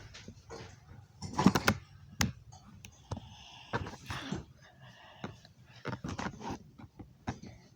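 Scattered sharp clicks and light knocks from hands handling a light bulb and its fixture.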